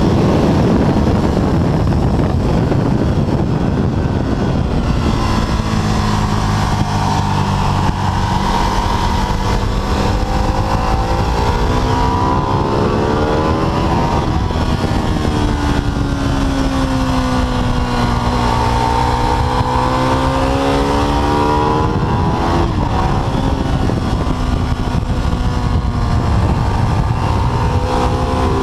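Ducati 848's 90-degree L-twin engine at speed, heard from onboard under heavy wind rush. About five seconds in, the engine note comes through clearly, falls in pitch and climbs again twice as the bike slows and accelerates through the corners. Near the end the wind noise swells and drowns it again.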